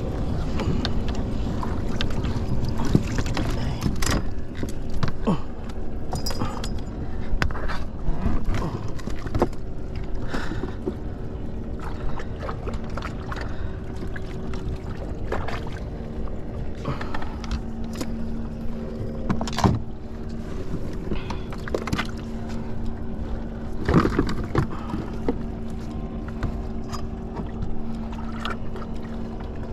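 Irregular knocks, bumps and clicks on a plastic fishing kayak as a gaffed kingfish is brought aboard and handled on the deck, over a low rumble of wind and water. A steady low hum runs underneath and gets stronger about halfway through.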